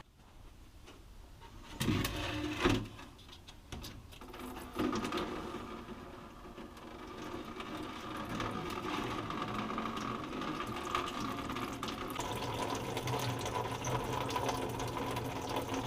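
Fluid running out of a 1970 Monte Carlo's drain into a drain pan in a steady stream, after a few knocks at the start. The pitch of the stream steps up a little near the end as the pan fills.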